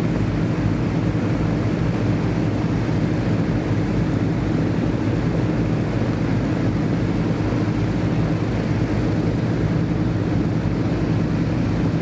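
The Rolls-Royce Griffon piston engines of an Avro Shackleton Mk3 running steadily on the ground, driving their contra-rotating propellers, with a deep, even drone.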